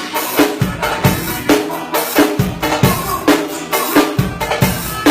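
A drum kit playing a steady groove, with bass drum and snare strikes in an even rhythm and pitched instruments under it.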